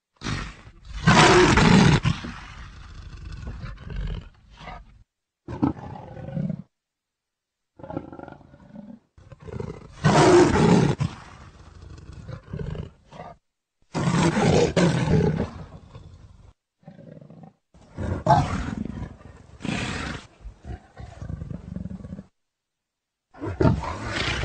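Leopard roaring: a series of loud calls of about a second each, one every few seconds, with the sound cutting off to dead silence between some of them.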